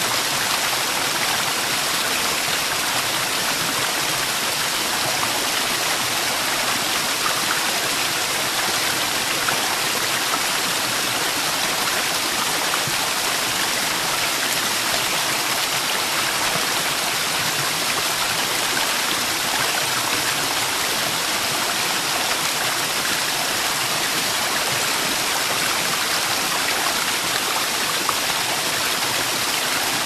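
Waterfall cascading into a pool: a steady, even rush of falling water, heavier in the high pitches than the low, with no breaks or changes.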